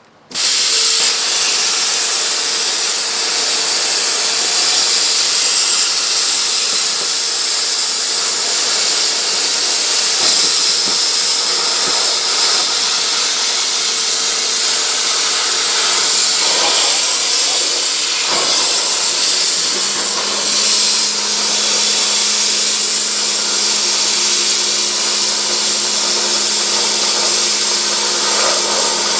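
Hypertherm Powermax 1000 plasma cutter cutting through a lathe bed: the arc starts suddenly and keeps up a loud, steady hiss with a faint hum under it. A second, lower hum joins about two-thirds of the way in.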